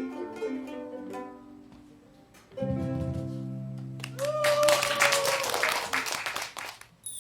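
Ukulele ensemble ending a piece: a few plucked notes fade out, then a final strummed chord rings out about two and a half seconds in, and clapping breaks out about a second and a half later.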